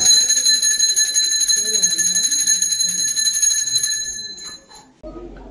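A temple bell rung rapidly: a fast run of strikes under a high, steady ringing that starts suddenly, holds for about four seconds and then dies away.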